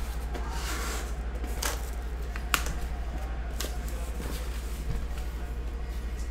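Cardboard shipping case being handled and its flaps folded back: rustling and scraping of cardboard with a few sharp clicks, over a steady low hum.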